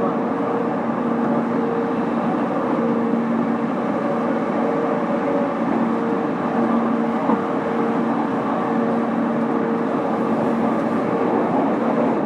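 Yamanote Line E231-series electric commuter train running at a steady pace: an even rumble of wheels on rail with a steady two-tone hum.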